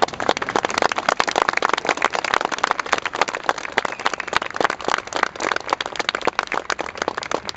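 Crowd of spectators applauding, dense and continuous clapping.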